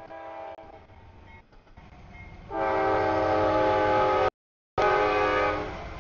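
CSX freight locomotive's multi-note air horn sounding for a grade crossing. A faint chord comes first, then a loud long blast from about two and a half seconds in that cuts off abruptly, and a second loud blast near the end, with a low rumble underneath.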